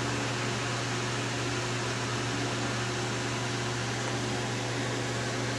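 Steady low electrical hum under a constant even hiss, with no distinct events.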